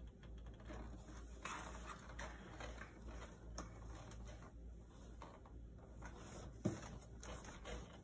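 Faint rustling and small ticks of cats shifting on a wooden floor and in a cardboard box, over a low steady hum, with one short soft thud about two-thirds of the way through.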